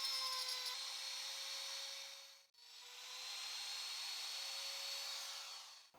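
Router with a 6 mm straight bit running steadily with a constant whine as it cuts a joint slot into hardwood. It drops out briefly about two and a half seconds in, then runs on.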